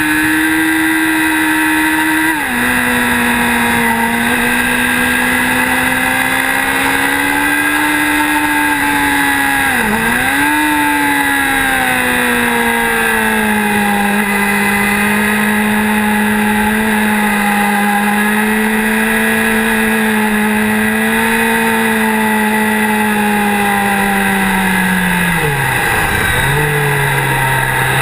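Motorcycle engine pulling steadily at a high note through the bends, with wind rush over it. The pitch drops suddenly about two seconds in, as after an upshift, dips and comes back around ten seconds in as the throttle is eased and reopened, and drops again near the end.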